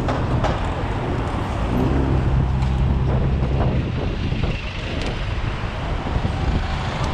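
Road traffic noise from close range: buses and cars running alongside, with a low steady engine hum that is strongest in the middle, and wind on the microphone.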